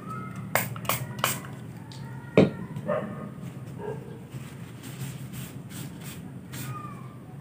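Hand-handling noises on a tabletop: a few sharp clicks in the first second and a half, one louder knock about two and a half seconds in, then lighter clicks, over a steady low hum. A few faint, short, high-pitched whines are heard now and then.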